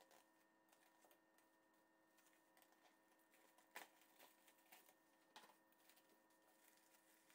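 Faint crinkling of plastic cling film being stretched and pressed around the rim of a cake pan, with sharper crackles a little under four seconds in and again about five and a half seconds in.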